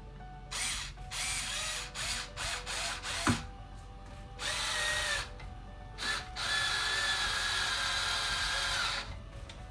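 Small cordless power screwdriver driving screws through a metal folding-leg hinge into a wooden table leg. It runs in a few short bursts, with a sharp click about three seconds in, then in one steady run of about two and a half seconds.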